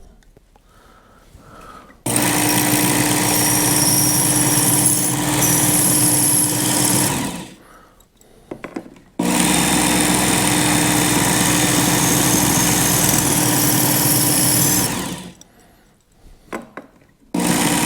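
Work Sharp Ken Onion electric belt sharpener running in two steady spells of about five and six seconds, its abrasive belt sharpening the points of a fishing spoon's treble hook. Each spell stops abruptly, with short quiet pauses and a few light clicks between them.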